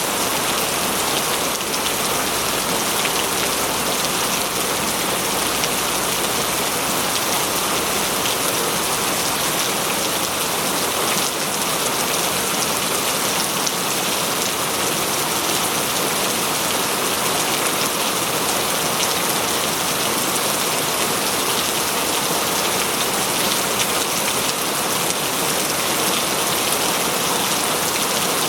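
Steady forest rain: a dense, even patter of many raindrops falling without a break.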